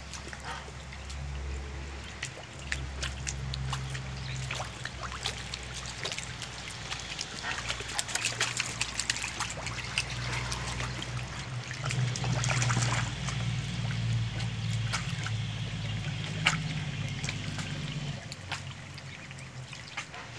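Water trickling and splashing, with many scattered light clicks and a steady low rumble underneath.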